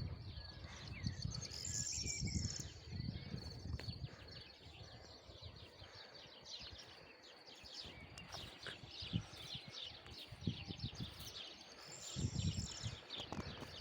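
Outdoor mountain ambience: birds chirping in short bursts over a steady high insect buzz, with wind rumbling on the microphone in gusts, strongest near the start and again near the end.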